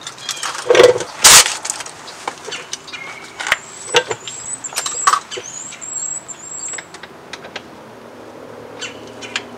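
Knocks and clicks of hands and tools working on a motorcycle's panels, two loud knocks about a second in and scattered lighter clicks after. A steady low vehicle hum comes up near the end.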